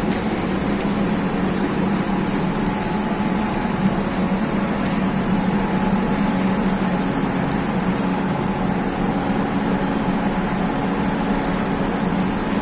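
A machine running steadily: a low hum over a constant hiss, with faint scattered crackles.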